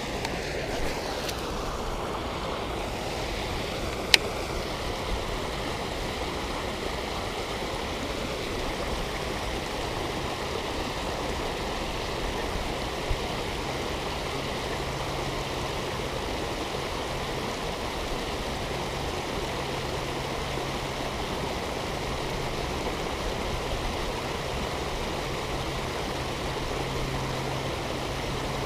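Steady rushing and splashing of a small waterfall pouring into a lake, with a single sharp click about four seconds in.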